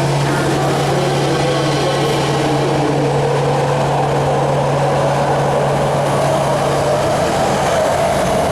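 Subway train running through an underground station: a steady, loud rumble with a low hum that stops about seven seconds in.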